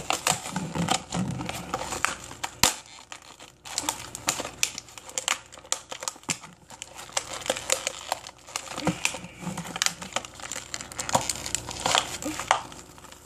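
Shopkins blister pack and foil blind bags being crinkled and torn open by hand: a dense run of irregular crackles, with a sharp snap about two and a half seconds in.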